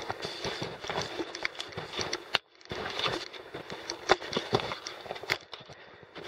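Footsteps scuffing and crunching irregularly over rocky mountain ground, with the sound breaking off briefly about two and a half seconds in.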